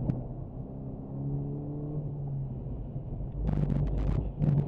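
Honda Civic's four-cylinder engine running at fairly steady revs, heard from inside the cabin while driving on wet pavement. About three and a half seconds in, a loud rumbling, hissing noise comes in bursts for about a second.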